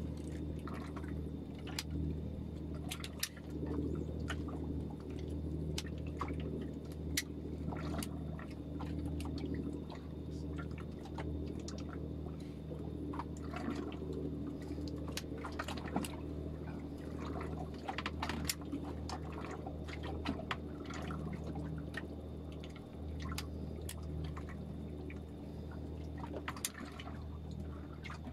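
Water lapping and slapping against a small fishing boat's hull in irregular splashes, over a steady low hum from the boat's engine.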